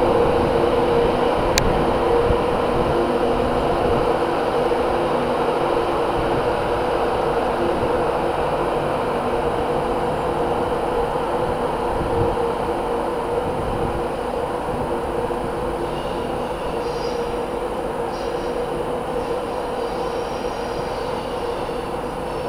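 Class 91 electric locomotive pulling away, its traction motor fans giving a steady whine that fades slowly as the train draws off. Faint high squeals come in near the end.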